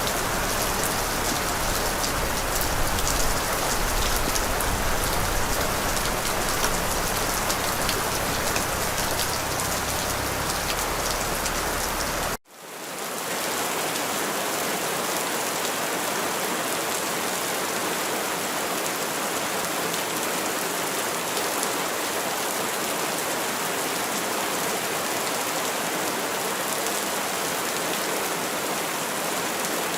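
Steady rain falling on a surface. About twelve seconds in it cuts out for an instant and fades back in, with less low rumble afterwards.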